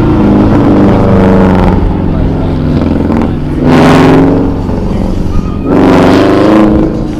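Car engine revving hard on an autocross course, climbing in pitch in two loud surges of acceleration about three and a half and five and a half seconds in, with the car running throughout.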